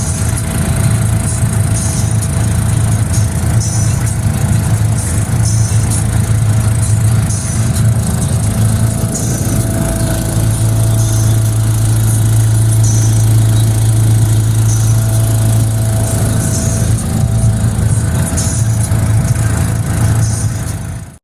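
2001 Bayliner Capri's engine running at a steady idle, with an exhaust leak. A faint hiss recurs every second or two. The sound cuts off suddenly near the end.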